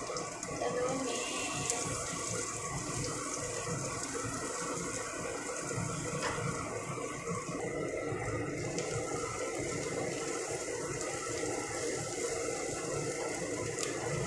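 Sliced shallots sizzling steadily in hot oil in a nonstick wok, stirred with a wooden spatula in the second half.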